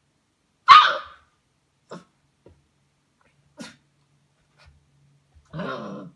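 A 5-week-old Newfypoo (Newfoundland–poodle cross) puppy gives one sharp, loud bark about a second in, then a shorter, softer vocal sound near the end, signs of the puppy's frustration at not working out how to get the food.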